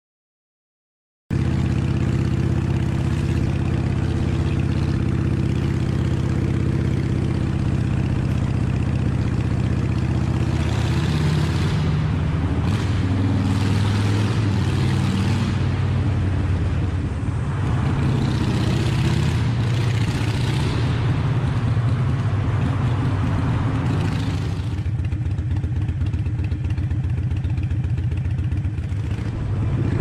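Motorcycle engine running steadily at cruising speed, heard from a camera mounted on the bike, starting about a second in, with a louder rush of noise swelling twice.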